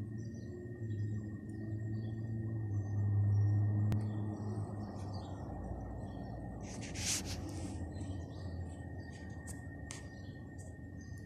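Small birds chirping in short, scattered calls over a low steady hum and a thin high whine; the hum is strongest in the first few seconds. A brief rustle about seven seconds in.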